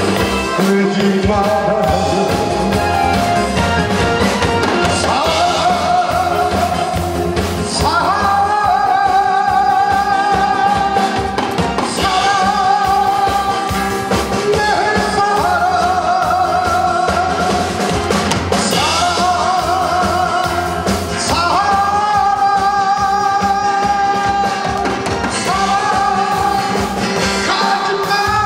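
A male singer's voice, amplified through a microphone, holds long notes with vibrato over a backing track with a steady drum beat.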